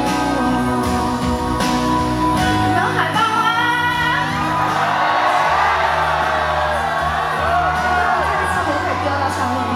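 Live pop music: a female singer with band accompaniment, her melody entering about three seconds in and held with vibrato.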